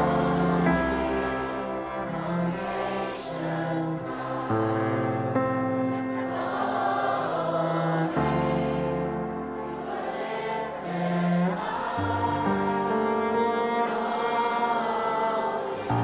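Live worship music: a band's sustained chords and bass notes changing every few seconds, with a congregation singing along.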